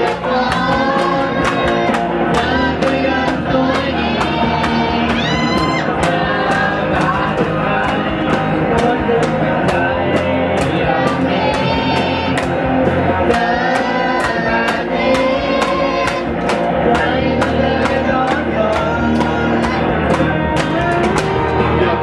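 Live band jam of a Thai pop-rock song: acoustic guitar strumming and electric guitar over a steady beat from an electronic drum pad, with several voices singing along into microphones.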